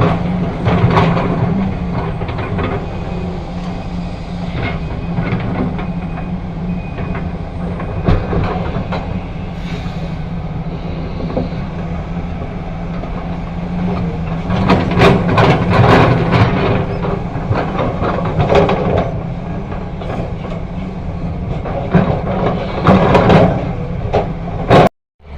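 Excavator at work: its diesel engine running steadily under repeated metal clanks and rattles, which come thickest in stretches of a few seconds. The sound cuts out briefly near the end.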